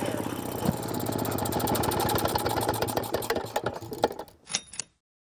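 Small single-cylinder two-stroke Maytag engine running steadily with a rapid popping firing beat, then slowing and dying away near the end, with a few last separate pops as it stops.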